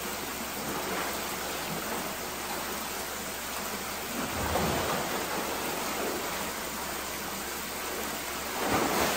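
Steady rush of water pouring from an outlet pipe into a pool, with a few louder splashes as an alligator swims and a person wades through the water, about four and a half seconds in and again near the end.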